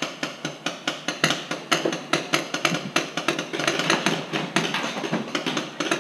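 Paintball markers firing in a rapid, uneven string of sharp pops, several a second, mixed with paintballs knocking against plywood walls.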